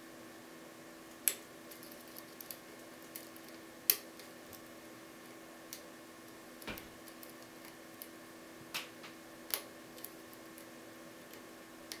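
A homemade hook pick and tension wrench clicking against the five pin tumblers of an FTH Thirard Adria euro cylinder lock being picked. The clicks are sharp, scattered and irregular, the loudest about a second and about four seconds in, over a faint steady hum.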